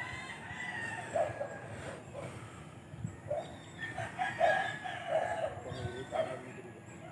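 Domestic chickens clucking, with a rooster crowing: pitched calls that come in two clusters, the second about four seconds in.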